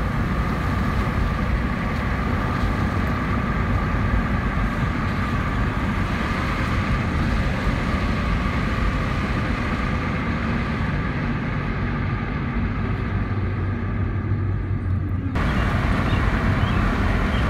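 Steady road noise of a moving car heard from inside the cabin: a low rumble of engine and tyres. The sound shifts abruptly and grows brighter near the end.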